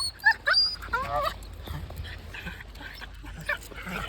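Czech Shepherd puppy giving a quick run of high-pitched yips and whines, densest in the first second and a half, with a few more scattered later.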